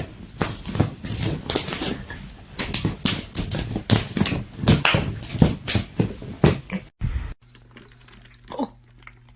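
A dog making a quick, irregular run of short noisy sounds for about seven seconds. Then it cuts to a quieter stretch with a steady low hum and faint ticks.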